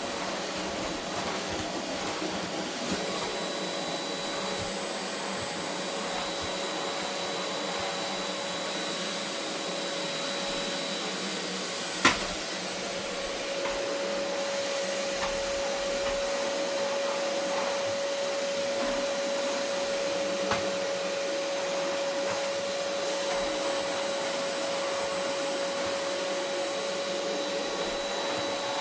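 Vacuum cleaner running steadily, its motor tone stepping slightly higher just after the middle. A single sharp knock comes near the middle.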